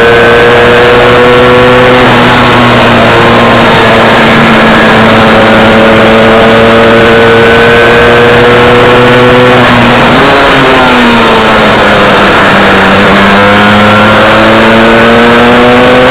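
Onboard sound of an MZ 250 two-stroke single-cylinder race bike under hard throttle: the engine note climbs slowly, dips briefly about two seconds in, drops away around ten seconds in as the bike leans into a corner, then climbs again near the end. A dense rush of wind noise runs underneath.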